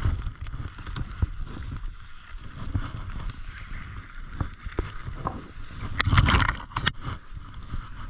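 Snowshoe footsteps crunching through deep snow, with spruce branches brushing past the body-worn camera and a low rumble of wind on the microphone. A louder brushing rush comes about six seconds in.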